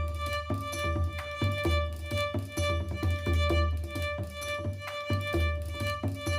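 Background music: a fiddle tune over a pulsing bass and a steady beat.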